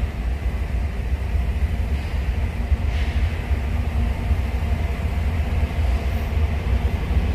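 Diesel locomotive engines running out of sight, a steady low rumble and drone that grows slightly louder toward the end.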